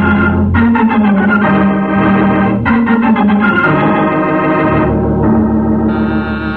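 Organ music bridge: a run of sustained, changing organ chords that mark a scene change in a radio drama.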